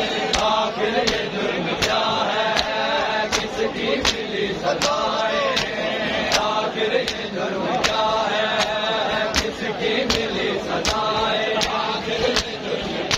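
Male voices chanting a noha together while mourners perform matam, their hands slapping bare chests in unison about one and a half times a second, each slap a sharp beat under the chant.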